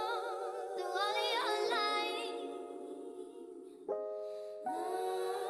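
Music with a singing voice holding long, wavering notes.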